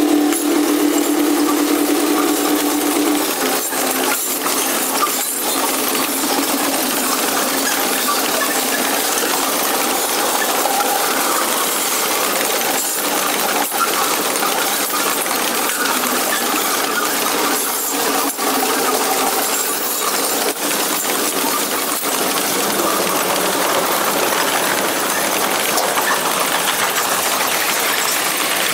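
A freight train's air horn sounding and cutting off about three seconds in. After it, Wisconsin & Southern hopper cars and boxcars roll past with a steady metallic clatter of wheels on the rails and occasional sharp clicks.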